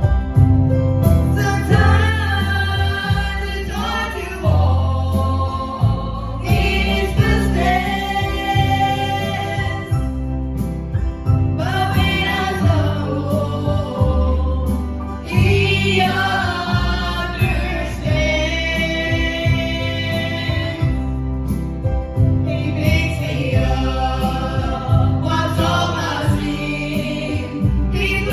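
Gospel song performed live by a small family vocal group, several voices singing together in phrases of a few seconds, accompanied by piano and acoustic guitar.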